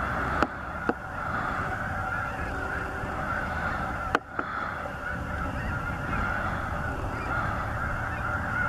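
A large flock of snow geese calling all at once, an unbroken din of high honks. Three brief sharp clicks cut through it, two within the first second and one about four seconds in.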